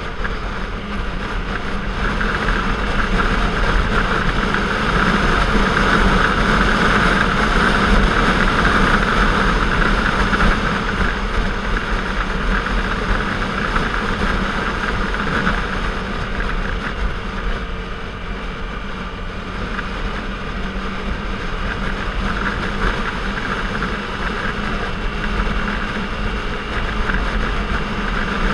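Sport motorcycle's engine running at a steady cruise, with wind and road noise on the bike-mounted camera's microphone. The sound swells a few seconds in and eases off about two-thirds of the way through.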